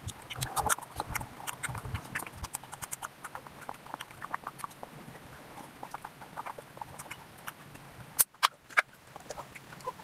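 Close-miked mouth sounds of a person chewing a bite of jalebi: a steady run of quick, irregular wet smacks and clicks, with a couple of louder clicks near the end.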